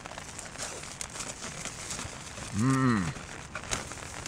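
Faint crinkling and rustling of a snack packet being handled. About two and a half seconds in there is one short hummed 'mmm' from a man's voice, rising and falling in pitch.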